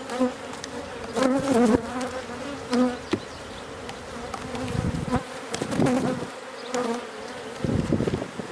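Honey bees buzzing around an open hive: a steady hum, swelling and wavering as bees fly close past the microphone. A few sharp clicks and knocks sound through it.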